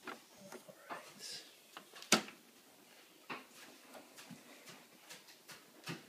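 Scattered clicks and light knocks from handling a record player, with one sharp click about two seconds in. No music plays: the turntable has not been switched on.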